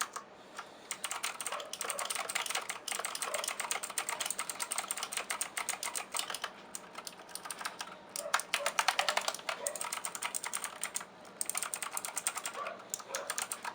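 Rakk Apiq .2 mechanical keyboard being typed on quickly: a dense run of key clicks with a brief pause about eight seconds in.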